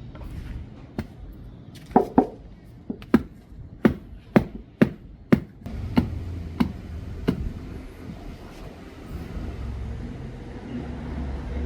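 A run of about ten sharp knocks or strikes, roughly half a second apart, starting about two seconds in and ending about halfway through, over a low, steady rumble.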